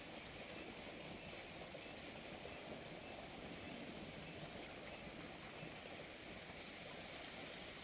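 Fast-flowing channel water rushing and churning over white water, a steady hiss with no breaks.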